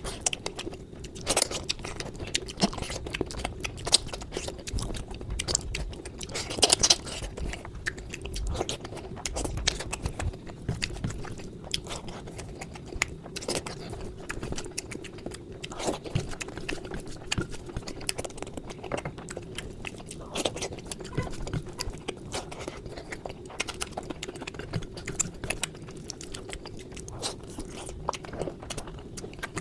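A person eating close to the microphone: chewing and biting food, with an irregular run of short crunches and clicks.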